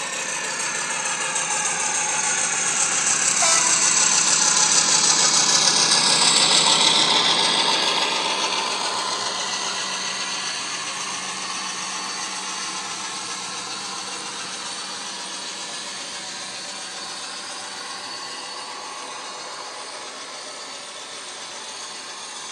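Cavalex OO-gauge model Class 56 diesel locomotive with its factory-fitted ESU sound decoder playing diesel engine sound through its on-board speaker as it passes, loudest a few seconds in. After it come model freight wagons rattling over the track, the clatter fading slowly as the train draws away.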